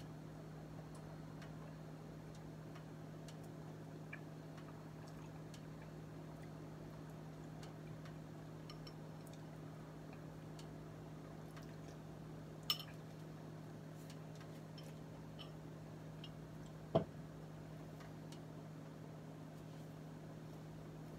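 Faint steady kitchen hum with scattered light ticks, and two sharper clicks a little past halfway and again about four seconds later.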